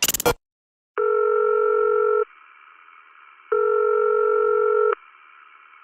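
Electronic telephone ringing tone on a call waiting to be answered: two steady rings of about a second and a half each, with pauses between. A short, loud glitchy crackle comes right at the start.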